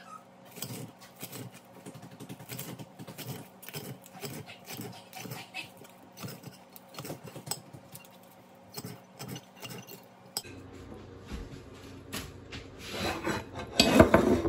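Kitchen knife chopping green onions against a ceramic plate, a quick, regular run of chops about three a second. Near the end, a louder clatter and scrape of the plate and dishes being handled.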